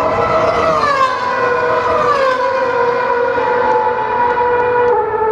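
Several Formula 1 cars' high-revving V8 engines screaming past one after another, each engine note falling in pitch as it goes by, over a steady background haze.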